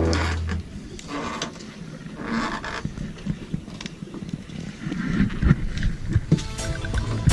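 Wind and boat noise rumbling unevenly on the camera's microphone, with irregular gusts. Guitar music fades out in the first half-second and music comes back in near the end.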